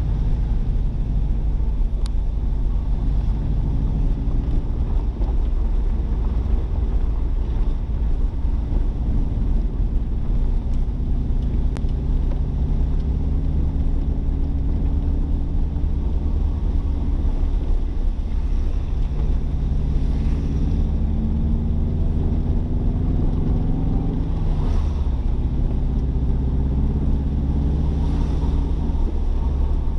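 Car engine and road noise heard from inside the moving car: a steady low rumble, with the engine note rising in the last third and then dropping suddenly about 25 seconds in.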